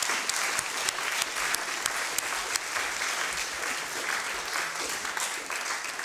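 Audience applauding, many hands clapping at a steady level.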